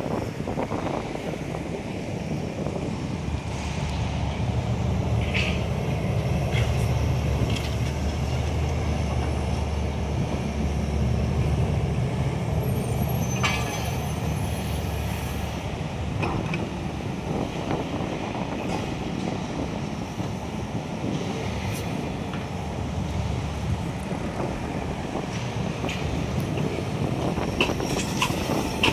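Excavator's diesel engine running steadily, with occasional clanks and clicks.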